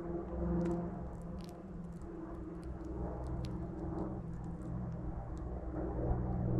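A steady low motor-like hum whose pitch wavers slightly, with a scatter of faint, sharp ticks over it.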